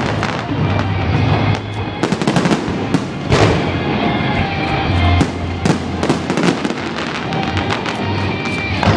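Aerial fireworks going off in quick succession, sharp bangs and crackles overlapping one another, with music playing underneath.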